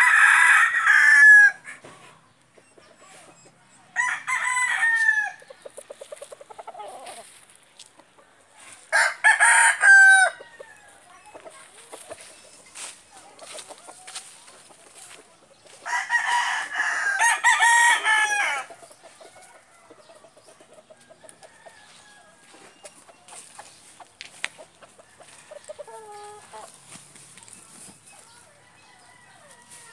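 Roosters crowing, four loud cock-a-doodle-doo crows spaced several seconds apart, the last the longest at close to three seconds, followed later by a fainter, shorter call.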